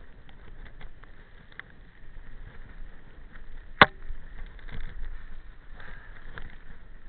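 Mountain bike riding over a bumpy dirt trail: rumble from the tyres and a light rattling of the bike with scattered clicks, and one sharp knock nearly four seconds in.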